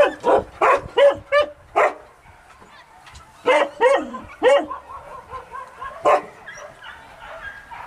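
Hunting dogs barking in quick, sharp barks: about six in under two seconds, a pause, three more, then a single bark, with fainter barks near the end.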